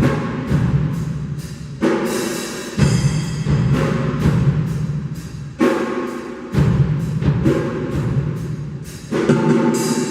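Acoustic drum kit played live in a steady groove, with even strokes about three a second and a crash with a heavy low hit roughly every three and a half seconds, three times.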